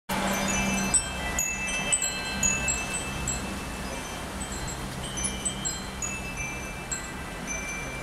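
Metal wind chimes ringing in irregular clusters of high, clear notes as gusts of wind move them, over a steady rush of wind.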